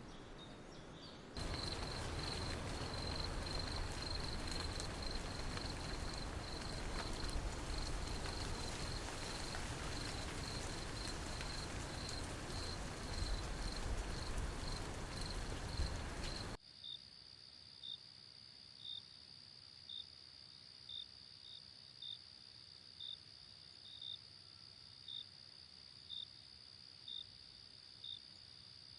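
Insects chirping in a steady high rhythm, about two chirps a second, over a loud even rushing noise. About two-thirds of the way through it cuts suddenly to a quieter steady high insect trill, with a single chirp about once a second.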